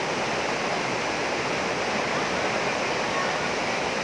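Waterfall pouring into a plunge pool: a steady rush of falling water.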